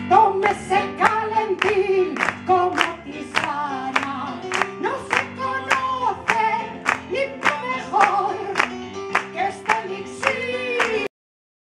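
A woman singing live into a microphone over musical accompaniment, with a sharp, regular beat about three times a second. The music cuts off abruptly near the end.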